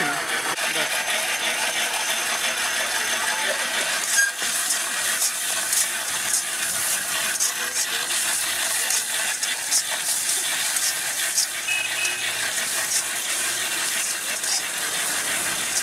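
Shredded cabbage, capsicum and paneer stir-frying in a hot wok: a steady sizzle, with a metal spatula scraping and clinking against the pan about once or twice a second from about four seconds in.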